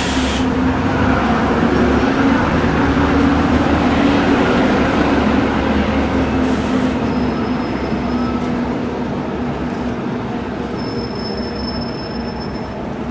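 A heavy vehicle running close by with a steady low hum. It is loudest a few seconds in and slowly fades, with a few brief high-pitched squeals in the second half.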